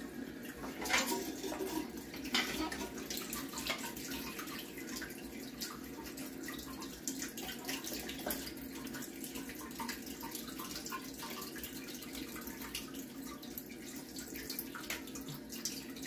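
Water splashing and dripping in a toilet tank as hands work the flush valve canister and its new seal, with irregular small clicks and knocks of plastic parts.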